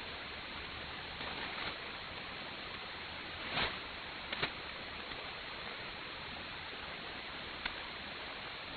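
Shortwave band noise from a Perseus SDR tuned to 6305 kHz in synchronous AM: a steady hiss with no programme audio, the pirate station having closed down. A few short static crackles come through, the strongest about midway.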